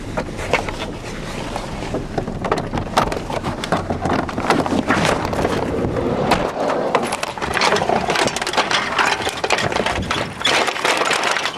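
Low rumble of a moving vehicle with clattering handling noise. About six and a half seconds in the rumble drops away, leaving rattling and knocking as a bicycle is ridden over rough grass with the camera jostled.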